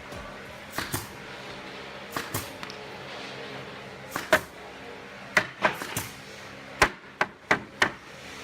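A run of about a dozen sharp wooden knocks and taps at irregular intervals, some in quick pairs: wood being worked or handled in a workshop.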